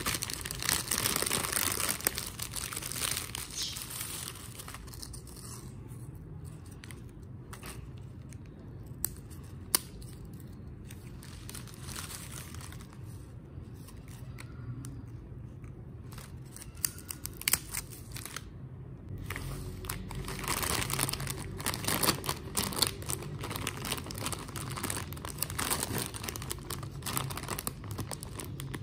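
Foil-lined Lay's potato chip bags crinkling and rustling as hands handle them. The crinkling is dense at the start, thins to scattered crackles through the middle, and grows dense again over the last third.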